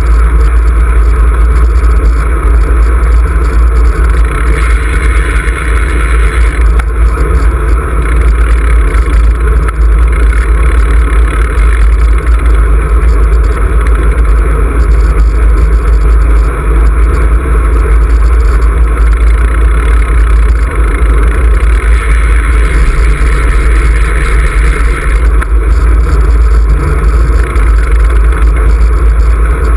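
Wind rushing and buffeting over the microphone of a camera on a road bike riding at speed: a loud, steady rumble, deepest at the bottom, with no breaks.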